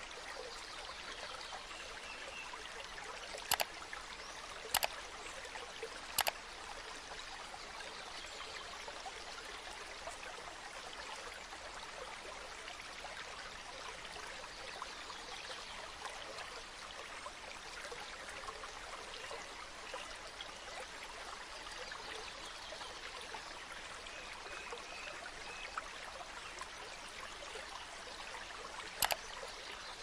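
Shallow mountain stream rushing steadily over rocks and small rapids. A few sharp clicks stand out above the water: three in the first seven seconds and one near the end.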